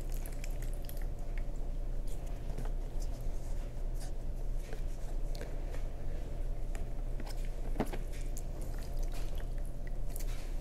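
Damp sphagnum moss being pressed and stuffed into a pot around a plant cutting: soft, irregular crunching and squishing with small crackles, and one sharper click about eight seconds in. A steady low hum runs underneath.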